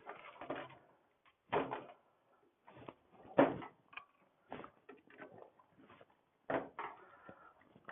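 Irregular knocks, clunks and rattles of tools and parts being handled on a workbench, the loudest about a second and a half in, at three and a half seconds, and again near six and a half.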